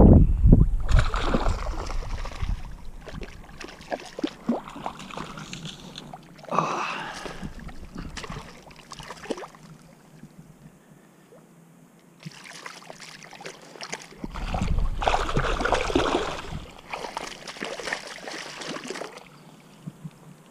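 Lake water splashing and sloshing in irregular bursts as a fish moves in a landing net held at the surface and gloved hands work in the water beside it.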